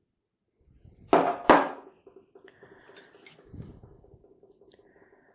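Metal hand tools being handled in a plastic tool case: two loud clanks in quick succession about a second in, then lighter clicks and rattles as pieces are moved.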